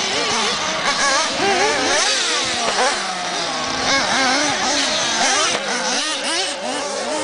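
Several 1:8 scale nitro RC off-road buggies racing, their small glow-fuel engines revving up and easing off in overlapping high-pitched whines that rise and fall continually.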